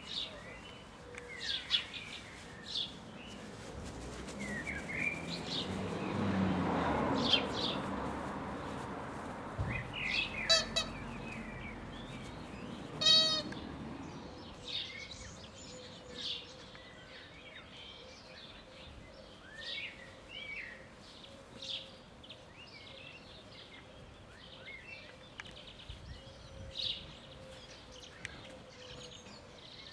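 Small songbirds chirping repeatedly, with a rushing noise that swells and fades in the first third and two short, high squeals about a third of the way in.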